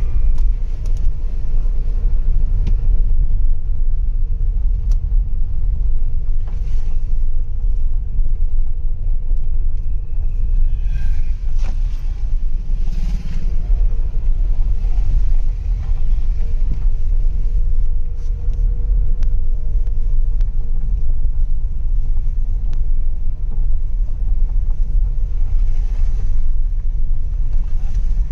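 Inside a car's cabin while driving slowly on a dirt road: a steady low rumble of engine and tyres, with a few scattered light clicks and knocks.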